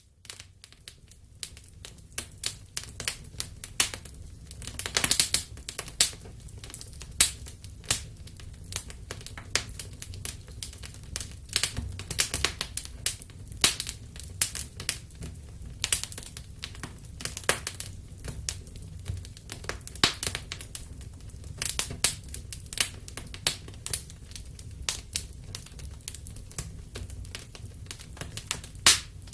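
Wood fire burning in a fireplace: irregular crackles and sharp pops, several a second, over a low steady rumble of the flames.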